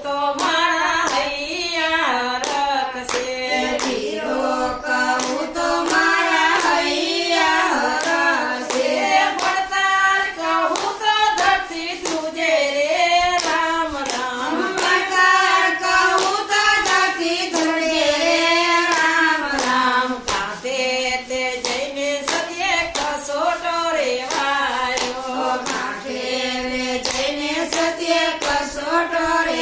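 A group of women singing a Gujarati bhajan together, keeping time with hand claps in a steady beat.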